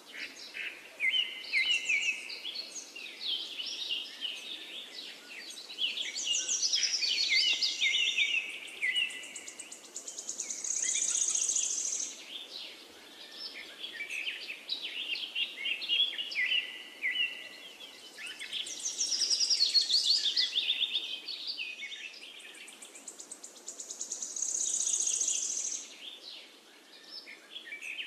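Songbirds chirping and twittering in busy runs of short rising and falling notes, with a fast high buzzy trill twice, about halfway through and near the end. The sequence seems to repeat about every fourteen seconds.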